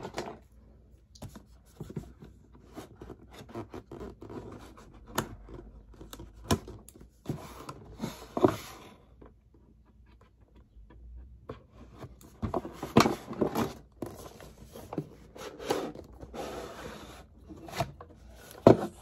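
Paperboard product packaging handled and opened by hand: scattered scrapes, rubs and light taps of cardboard in bursts, with a lull midway.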